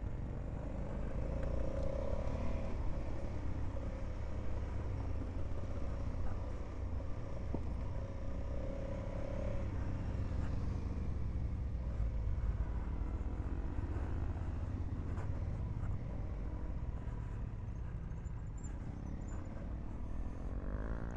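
Honda Africa Twin's parallel-twin engine running steadily under way on a dirt track, with other motorcycles close by.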